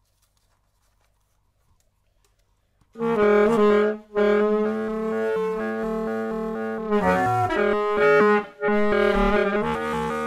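Solo saxophone in free contemporary improvisation. After about three seconds of near silence it comes in with long held notes, each rich in overtones, broken twice by short breaths.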